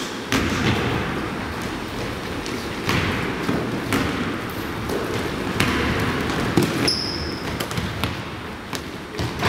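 Basketball bouncing on a wooden gym floor amid players' running footsteps, repeated sharp thuds echoing around a large hall. A short high sneaker squeak about seven seconds in.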